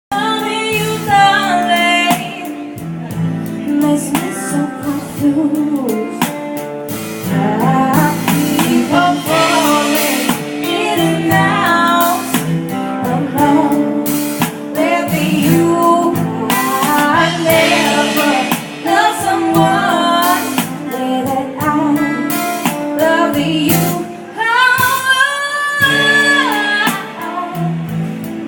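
A mellow song: a singer over guitar accompaniment.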